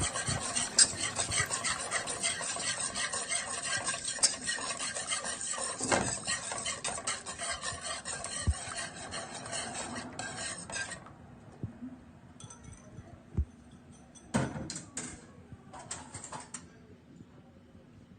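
A utensil stirring and scraping a pan of sautéed onion, garlic and egg-and-milk sauce, continuous for about eleven seconds. Then the stirring stops, leaving only a few utensil knocks.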